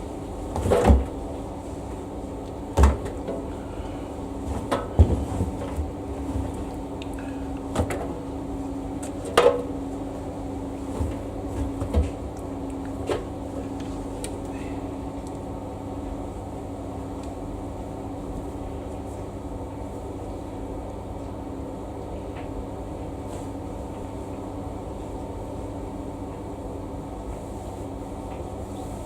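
Several knocks and clunks of a Samsung washing machine being loaded and its door handled, spread over the first dozen seconds, then a steady hum with a low tone.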